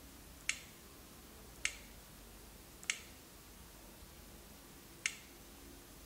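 Four short, sharp clicks at uneven intervals as a stylus taps buttons on a touchscreen display.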